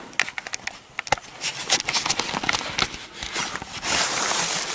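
Camera handling noise as the camera is picked up and turned: scattered rustles and clicks, then a steady rushing noise for the last second or so as something rubs against the microphone.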